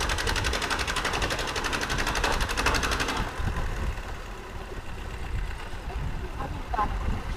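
Inboard engine of a wooden pompong boat chugging in a fast, even rhythm, then dropping to a quieter low rumble about three seconds in as the boat eases off and slows.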